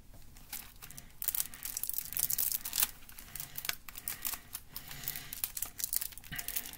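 Plastic wrapping on a CD box set crinkling and tearing as it is picked at and peeled off by hand, in many irregular crackles.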